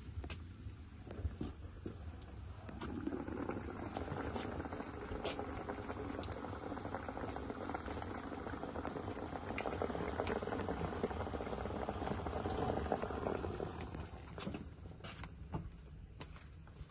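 Liquid bubbling at a boil in a cooking pot, swelling in about three seconds in and dying away about fourteen seconds in, with a few light clicks.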